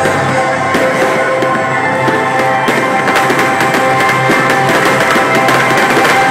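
Loud music with sustained held chords, with fireworks crackling and popping over it, the crackles growing denser from about halfway.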